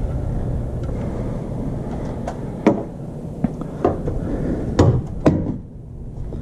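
Handling noise from wiring a ceiling fan's module at its mounting bracket: scattered light clicks and knocks, about six in all, over a steady low rumble.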